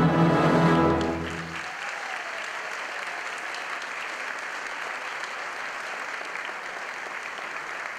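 Orchestral ballet music holds a final chord and ends about a second and a half in, and audience applause begins and carries on steadily.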